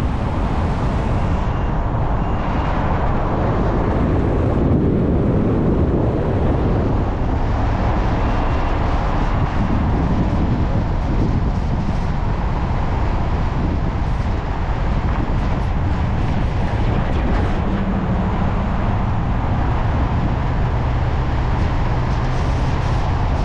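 Steady road and engine noise of a moving vehicle, with a low drone coming in over the last few seconds.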